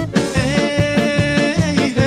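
Instrumental Romanian folk-style dance music: a bouncing bass-and-chord beat under a melody line that holds one long note from about half a second in until about a second and a half.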